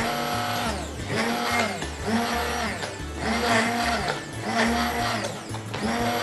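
Hand-held immersion blender pulsed in short bursts in a pot of okra stew, about once a second, its motor whirring up and back down each time, over background music.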